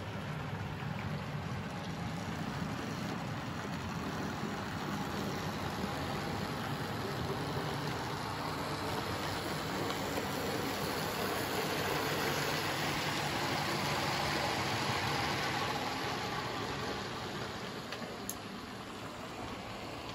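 00-gauge model trains running on the layout: a steady whirring rumble of small electric motors and wheels on the rails. It grows louder in the middle as the blue Princess class steam locomotive passes close, then eases off near the end.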